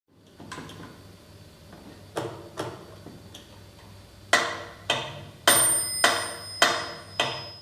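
Metronome with a bell ticking, a few soft uneven clicks at first, then loud, steady ticks about 100 a minute. About halfway through, the bell rings once on a beat, marking the start of a bar, and its high ring carries on under the next ticks.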